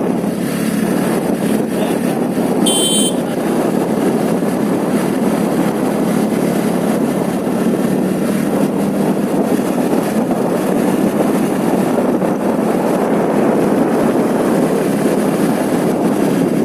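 Steady running noise of a moving scooter, its small engine mixed with air rushing past the microphone. A brief high chirp about three seconds in.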